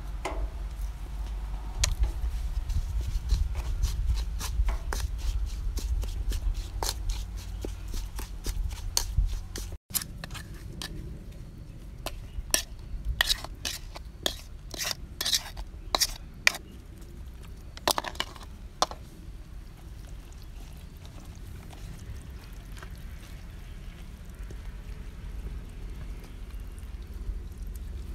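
Wooden spoon stirring and scraping chili marinade in a coconut-shell bowl, with many sharp clicks of spoon against shell over a low rumble. After a cut about ten seconds in, another run of clicks, then quieter handling as the marinade is spread onto the fish.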